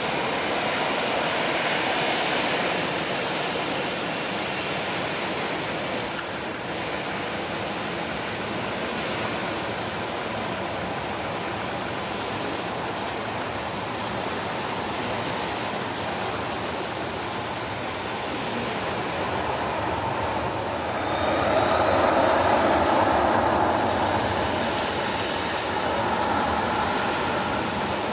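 Jet engines of a taxiing Boeing 737-800 freighter (CFM56) running at idle: a steady rushing noise with a faint tone. It swells about 21 seconds in, with a faint rising whine.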